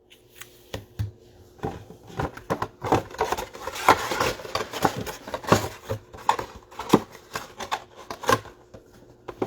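Crackling, rustling and small clicks of trading-card boxes and their plastic wrapping being handled and opened, in quick irregular bursts.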